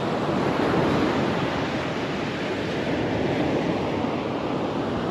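Steady rush of surf on a beach, with wind on the microphone.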